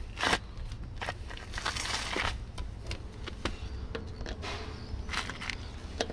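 Irregular metal clicks and short scrapes of a socket wrench being worked on a car's wheel nut, with a longer rasping scrape about two seconds in. The standard wheel nuts are being tightened hard to free the locking wheel bolt.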